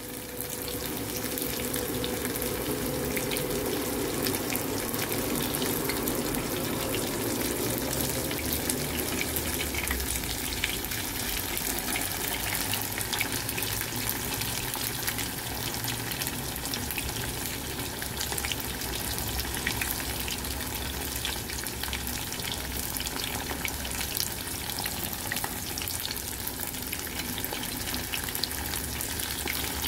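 Tofu frying in hot oil: a steady sizzle full of fine crackling pops.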